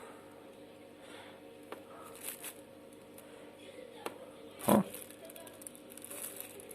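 Quiet room with a faint steady electrical hum, a few small clicks and one short louder knock a little after the middle.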